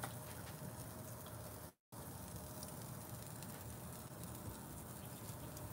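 Pork loin chops sizzling faintly on a grill grate over charcoal: a steady soft hiss with small scattered crackles. The sound cuts out completely for a moment about two seconds in.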